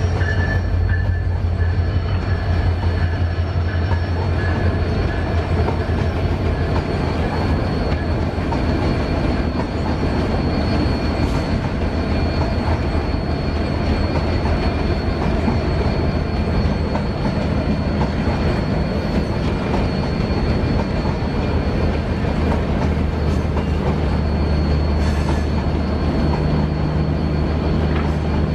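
Broad-gauge passenger train of LHB coaches rolling steadily past on the rails, with a thin high whine over the running noise. A low diesel engine drone sits beneath it and grows stronger near the end.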